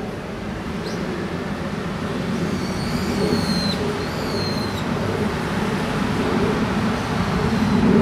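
Steady low rumble of road traffic, with two high thin bird whistles about three seconds in, the first drawn out and dropping in pitch at its end.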